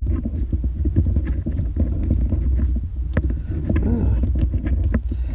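Steady low rumble with scattered light clicks and handling noises.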